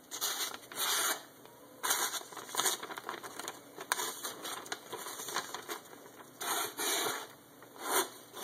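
A sharp knife slicing through a sheet of newsprint flyer in a paper-cutting sharpness test: about eight short papery swishes, with the paper rustling as it is held and turned between cuts.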